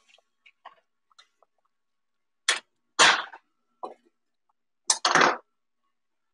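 Metal tongs clinking and clattering against stainless steel pots and a metal bowl while chicken pieces are lifted out of the soup: a handful of short knocks, the loudest about three and five seconds in.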